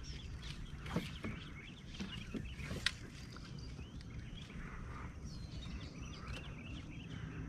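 Birds chirping and singing over a low steady rumble, with a couple of sharp clicks about one and three seconds in.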